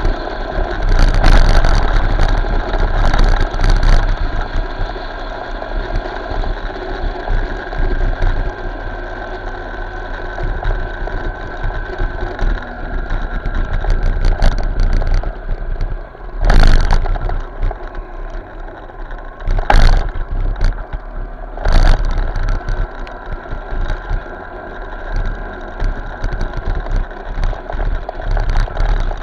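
Motorcycle ride in road traffic heard through an action camera's microphone: a steady engine and road rumble, with three short, loud bursts about two-thirds of the way through.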